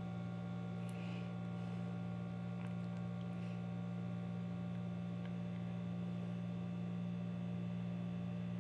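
Steady electrical hum, low and unchanging, with a stack of fainter steady tones above it.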